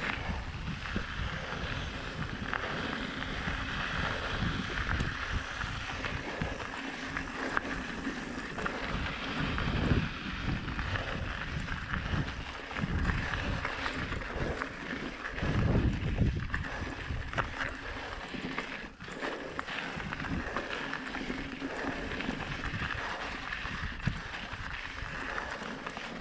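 Wind buffeting an action camera's microphone while a mountain bike rolls along a dirt trail, with the crunch of tyres on gravel and small rattles from the bike. A few stronger gusts rumble through midway.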